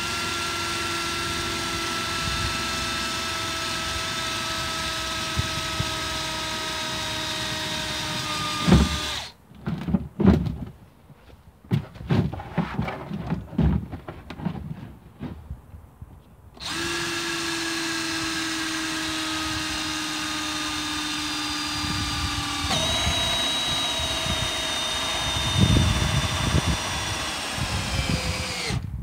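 Cordless drill driving a hole saw into the plastic wall of a water butt: a steady motor whine that slowly sags in pitch. About a third of the way in it stops for several seconds of knocks and handling, then runs again and cuts out near the end as the battery runs flat.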